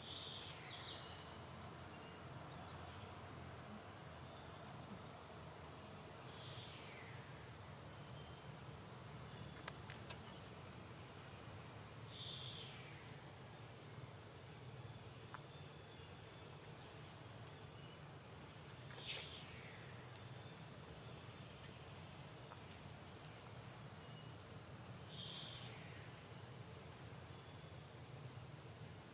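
Insects droning steadily in one high tone, with short high chirps every few seconds, several of them sliding down in pitch.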